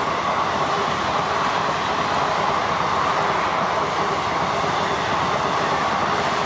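Indian Railways train running past on the track: a loud, steady rush of wheel and rail noise.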